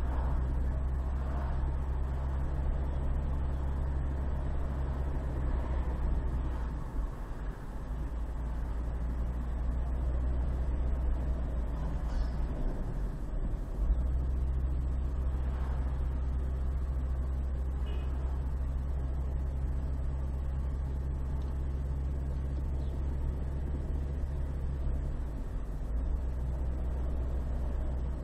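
Car engine and tyre noise heard from inside the cabin while driving on a city street: a steady low drone that dips briefly a few times.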